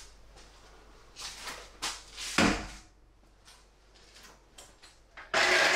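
Handling noise from drywall framing work: a few short knocks and rustles, then a loud scraping rush near the end as a steel CD ceiling profile is picked up and moved.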